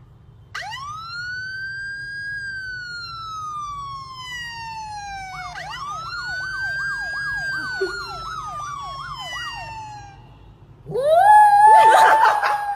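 Siren sound played on a phone: a long wail that rises and slowly falls, then a second wail with a fast yelping tone over it. About eleven seconds in, a small white dog howls along with it, a loud, wavering howl of about two seconds.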